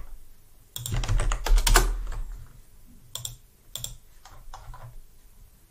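Typing on a computer keyboard: a quick run of keystrokes about a second in, then a few scattered single key or mouse clicks.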